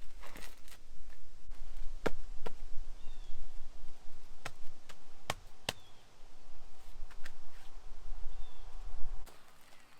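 A series of sharp, irregularly spaced knocks and taps over a low rumble that cuts off near the end.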